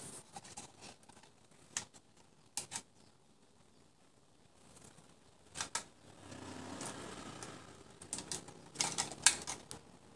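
Irregular sharp clicks and snaps, with a soft rustle of leaves about six seconds in, as a long pole fruit picker with a plastic bottle on its tip is worked among the twigs of a rose apple tree.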